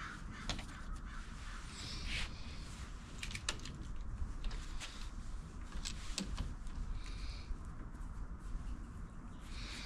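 Scattered light clicks and knocks as the metal parts of a bike repair stand are handled and fitted, over a steady low rumble.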